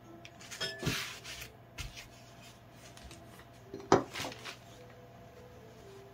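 Clay-working handling sounds: a loop tool scraping and rubbing on the clay box for about a second, then a sharp knock about four seconds in as the wooden-handled tool is put down on the bench and the box set on the banding wheel, followed by brief scraping.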